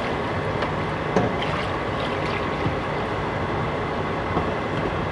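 Beef broth poured in a steady stream from a pressure-cooker pot into a soup pot of vegetables and liquid, splashing into the soup, with a couple of light knocks.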